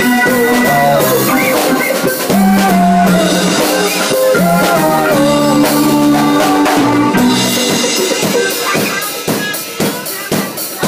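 Live band music: a drum kit and electric guitar playing with held pitched notes over the beat. About eight seconds in the held notes drop away, leaving separate sharp drum hits.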